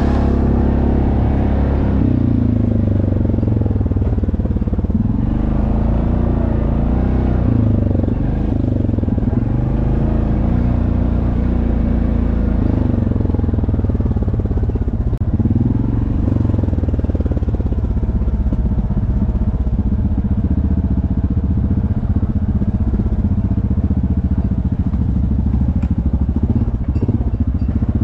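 ATV engine running on a dirt trail, heard up close from the machine itself. Its pitch rises and falls several times as the throttle is opened and eased off.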